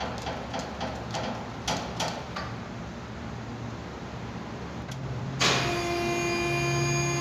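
Ratchet wrench clicking about three times a second, stopping about two and a half seconds in. About five seconds in, a louder steady hum with several pitches starts suddenly and runs for about two seconds.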